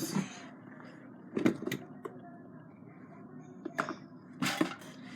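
A few short knocks and clatters of small objects being moved and set down on a table as it is tidied: a pair about a second and a half in, then two more near four and four and a half seconds.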